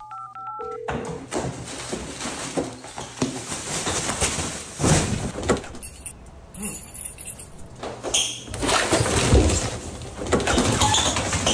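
A few quick two-tone phone keypad beeps and then a single lower beep. After these come several seconds of irregular knocks and noise that get louder near the end.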